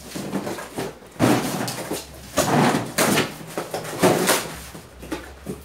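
Cardboard shipping box being torn open by hand: three noisy bursts of tape and flaps ripping, about a second apart.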